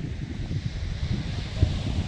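Wind buffeting the microphone in uneven low gusts, over a steady hiss of sea water.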